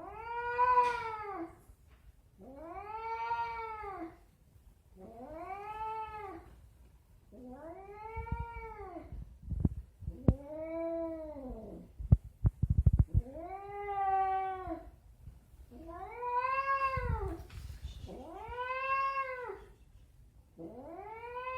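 An elderly domestic cat giving long, drawn-out meows, about nine of them, one every two seconds or so, each rising and then falling in pitch. A few low bumps of handling sound fall among them.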